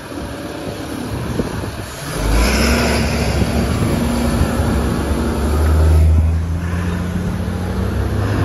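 A full-size school bus accelerating close past, its engine's low drone setting in about two seconds in and loudest around six seconds. Its tyres hiss on the wet road as it goes by.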